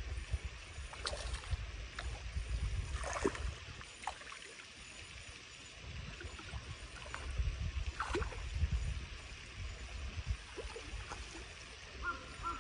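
A hooked fish splashing and thrashing at the surface close to the bank: several separate splashes, the clearest about 3 and 8 seconds in, over a steady low rumble.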